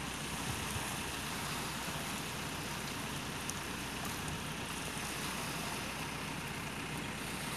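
Steady rushing noise of wind and shallow sea water, with a low engine hum running underneath.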